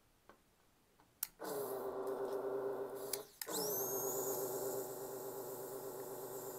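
Vacuum pump of a desoldering station running as the desoldering gun sucks molten solder off a chip's pins: a steady motor hum that starts with a click after about a second, stops briefly near the middle, and starts again with a rising whine.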